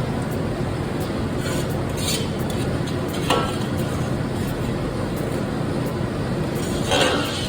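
Steady, loud background noise of a cooking kitchen, with metal utensils clinking and scraping against pots now and then: once about two seconds in, again a little after three seconds, and most loudly near the end.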